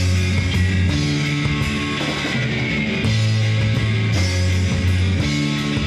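Background rock music with guitar: sustained notes that change about every second over a steady beat.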